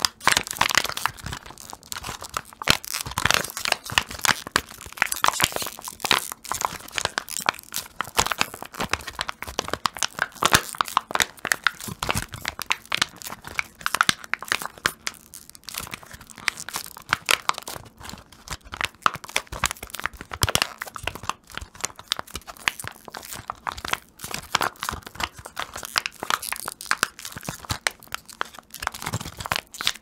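Thin clear plastic packaging bag being crumpled and twisted in the hands, making a continuous dense crinkling and crackling.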